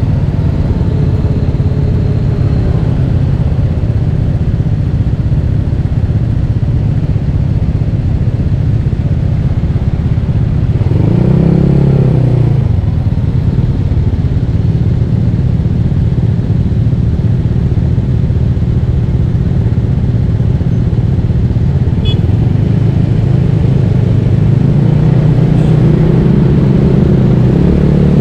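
Bored-up Yamaha Mio scooter on the move: a steady low rumble of engine and road noise, with an engine note that rises and falls about eleven seconds in and again near the end.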